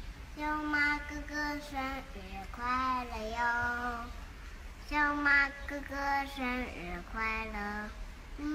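Toddler singing a tune in short phrases, several of them ending on long held notes.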